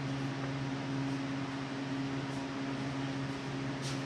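Steady low machine hum with an even hiss over it, unchanging throughout, and one faint click near the end.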